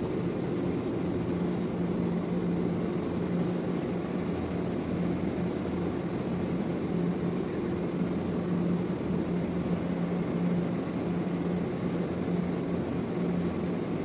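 Steady drone of running industrial machinery, with a constant low hum throughout.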